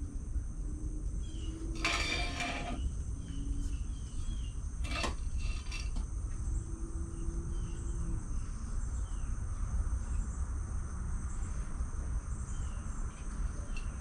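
Steady high-pitched insect drone with a low rumble underneath and short scattered chirps. A brief clatter comes about two seconds in and a sharp knock about five seconds in.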